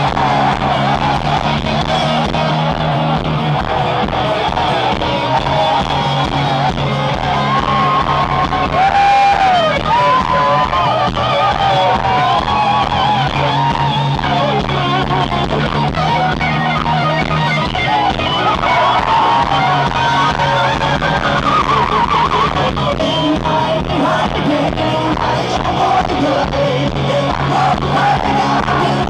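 Live rock band playing loudly, a wavering, bending melodic lead over steady bass and drums.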